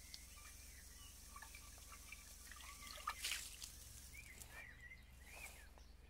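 Faint trickling and dripping of water as a metal pot is rinsed over a basin of water, with a brief splash about three seconds in.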